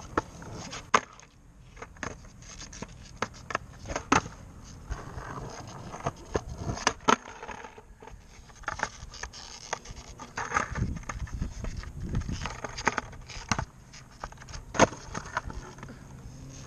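Skateboard wheels rolling over asphalt, with sharp clacks of the board hitting pavement and curb several times.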